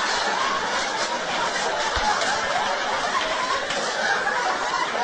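Live audience laughing steadily, a dense crowd laugh with no single voice standing out.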